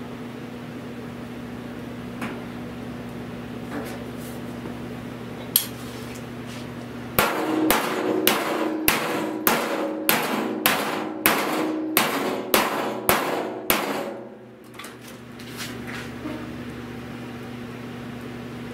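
Body hammer striking the bare steel lower fender of a 1970 Buick Wildcat, tapping out dents in the distorted sheet metal. One blow, then a run of about a dozen steady blows, roughly two a second, each ringing. A low steady hum underneath.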